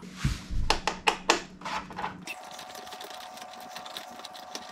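Removing the 5 mm bolts from a motorcycle's oil cooler mount. First comes a run of sharp tool clicks. About two seconds in, a small power tool starts whirring steadily with fast ticking as it spins the bolt out.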